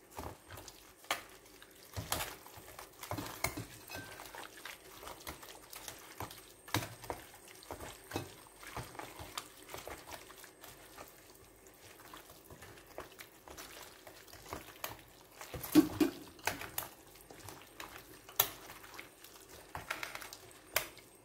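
A hand mixing chicken pieces into a wet tomato-and-herb marinade in a steel pot: irregular wet squelches and soft knocks against the pot, the loudest about three-quarters of the way through.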